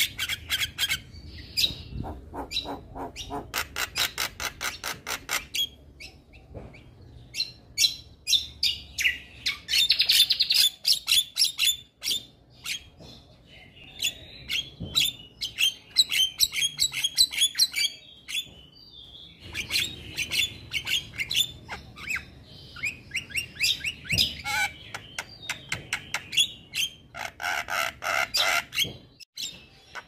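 Male Javan myna singing: rapid runs of sharp clicking and chattering notes mixed with harsh squawks, broken by short pauses.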